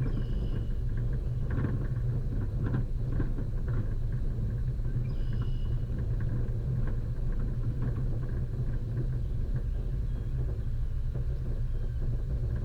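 Off-road vehicle's engine running steadily at a low pitch while driving a rough dirt track, with scattered knocks and rattles throughout.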